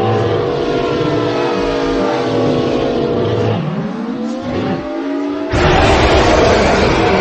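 A multi-tone horn sounding a chord of several tones that slide and bend in pitch. About five and a half seconds in, a sudden loud rushing noise cuts in over it.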